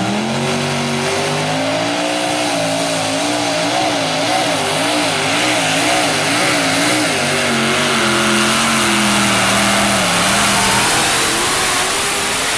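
Supercharged engines of a modified pulling tractor at full throttle, dragging a weight-transfer sled. The engine note rises at the launch, then wavers rapidly up and down for several seconds before steadying and sagging slightly near the end.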